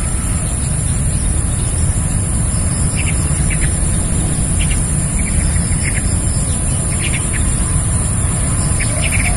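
Swamp ambience: a steady low rumble under a steady high-pitched hiss, with a bird's short chirping calls several times.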